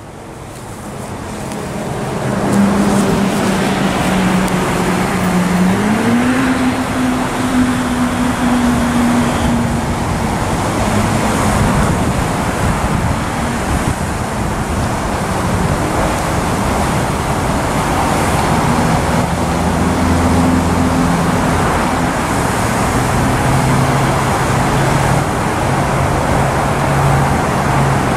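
Engine hum over a steady rushing noise; the hum rises in pitch about six seconds in and holds, then shifts to a lower tone in the second half.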